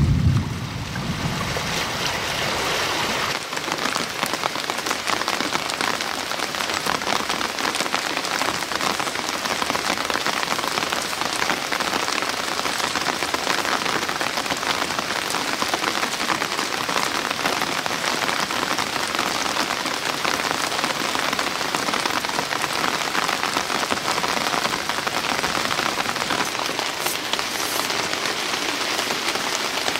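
Steady rain falling: a dense, even patter of drops. A low rumble dies away in the first second.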